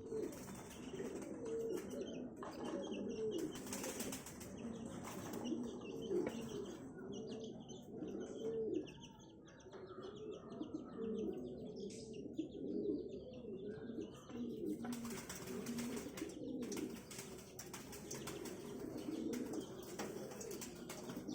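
Subash pigeons cooing over and over, low rolling coos that rise and fall in pitch, with bursts of wing flapping about four seconds in and again about fifteen seconds in.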